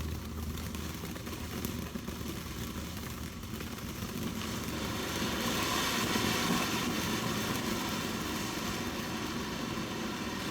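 Ground fountain firework spraying with a steady hiss that swells about halfway through.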